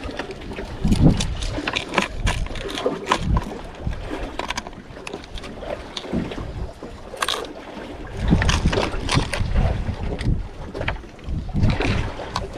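Wind buffeting the microphone over water lapping against a small boat's hull, with irregular knocks and slaps.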